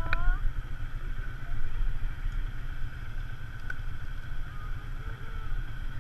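Polaris RZR side-by-side's engine running steadily, a low rumble.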